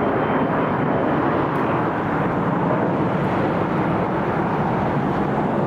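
Steady noise of jet aircraft engines, holding level without rising or falling.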